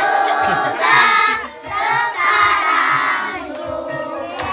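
A group of children singing a birthday song together, with a steady beat of hand claps.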